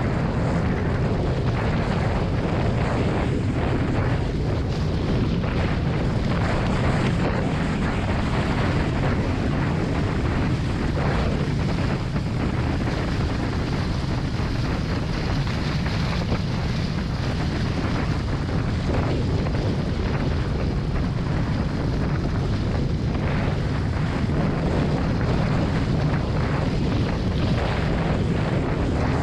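Strong wind buffeting the microphone, with water rushing past the hulls of a Hobie 16 catamaran sailing fast.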